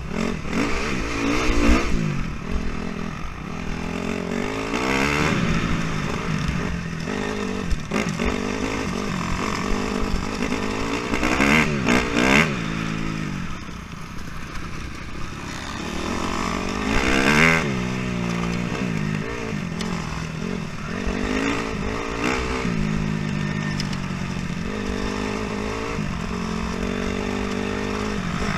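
Honda CRF250R dirt bike's single-cylinder four-stroke engine, heard from the bike itself, revving up and dropping back again and again as it is ridden over rough ground.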